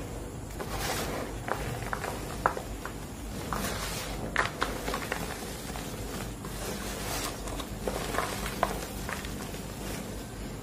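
Hands crushing and rubbing green-dyed gym chalk, powder and crumbly chunks, in a bowl: soft gritty rustling with scattered short crunches and crackles.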